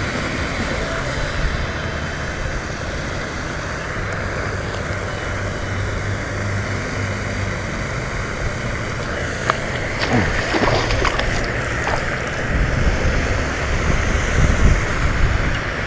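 Wind buffeting the microphone: a steady rushing rumble, with a few short handling clicks and squeaks about ten seconds in.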